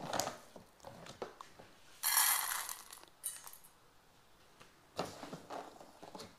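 Dry kibble poured from a plastic bag into a steel bowl, rattling for about a second, two seconds in, with shorter rattles and crinkling of the bag's plastic later on.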